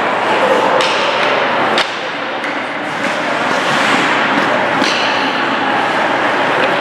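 Ice hockey play: several sharp clacks of sticks and puck, the strongest about two seconds in, over steady, noisy arena sound.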